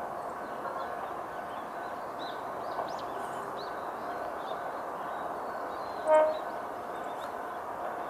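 Kanto Railway KiHa 2100-series diesel railcar sounding one short horn blast about six seconds in, as a warning on approaching a level crossing. Under it a steady hum and small birds chirping.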